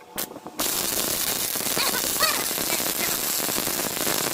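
Electric welding arc crackling: a brief spurt just after the start, then a steady, dense crackle from about half a second in.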